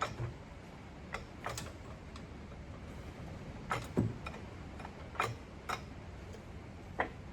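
Irregular clicks and knocks of the oil pan being worked up into place against the engine block, about eight in all, the loudest a click with a dull thump about four seconds in.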